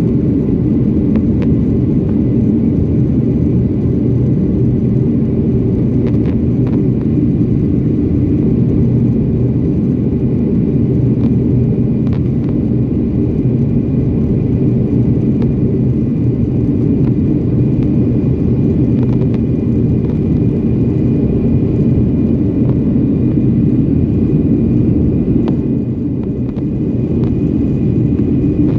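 Jet airliner cabin noise in flight after takeoff: the steady, loud low roar of the engines and airflow heard from a window seat, with a faint steady high whine. The level dips slightly near the end.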